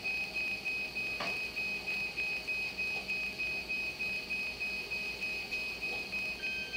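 Dialysis machine alarm beeping: a quick, even run of high electronic beeps, about two a second, that keeps going without a break.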